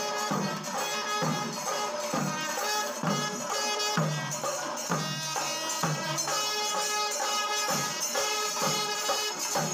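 Kerala temple ensemble of kombu, the large C-shaped brass horns, blowing long held tones together, over chenda drums beating a steady rhythm with strokes about once a second.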